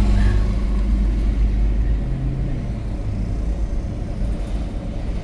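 A car driving on a city street, heard from inside the cabin as a steady low rumble of engine and road noise.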